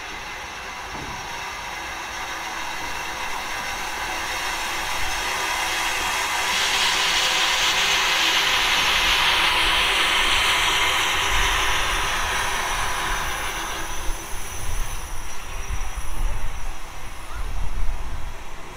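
A heritage railway train running in and passing close by. The noise builds steadily to a loud peak around the middle, then gives way to a lower, uneven rumble with irregular knocks from the passing carriages near the end.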